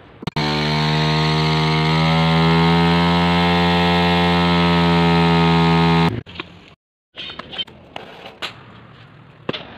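Small motorcycle engine held at high revs while the rear tyre spins in a burnout, with a slight shift in pitch about two seconds in. It cuts off suddenly about six seconds in, followed by a few scattered clicks and knocks.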